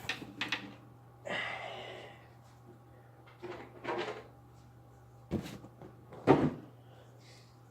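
Cardboard box and packaging handled as an RC truck is pulled out of it: a scraping rustle, scattered knocks, and two sharp thumps, the second, about six seconds in, the loudest. A steady low hum runs underneath.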